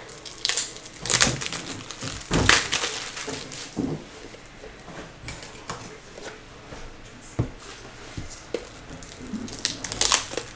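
Plastic trading-card pack wrappers crinkling and tearing as packs are opened, in irregular short bursts with a few sharp ticks in between.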